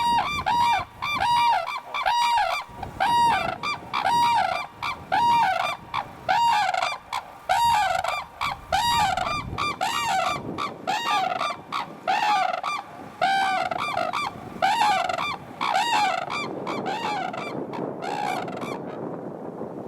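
A pair of red-crowned cranes calling together in their duet, a long series of loud, ringing, arched calls at about one or two a second. The calls of the two birds overlap, grow a little weaker near the end, and stop about a second before the end.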